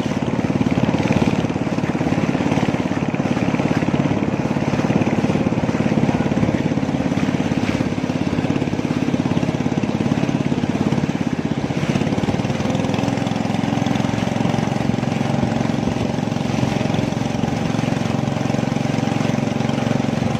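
Motorboat engine running steadily at close range, with its note shifting slightly about twelve seconds in.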